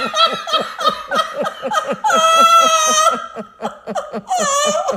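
Hearty laughter in quick rhythmic bursts, about four to five a second, with a long high-pitched squeal about two seconds in and a shorter one near the end.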